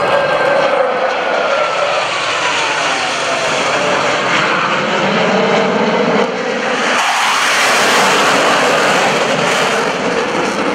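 Jet engine noise from a Blue Angels F/A-18 Hornet flying past: a whine that falls in pitch over the first few seconds, then a loud roar that swells about seven seconds in.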